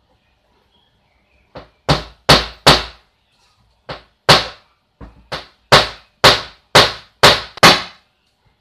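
A small hammer striking a plywood board, about a dozen sharp blows: a run of four, a pair, then a steady run of about eight at roughly two a second.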